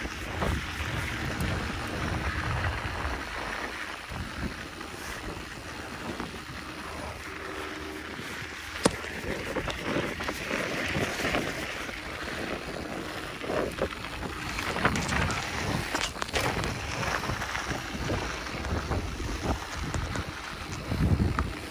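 Wind rushing over the microphone while a mountain bike rolls along a dirt trail, with scattered clicks and rattles and one sharp click about nine seconds in.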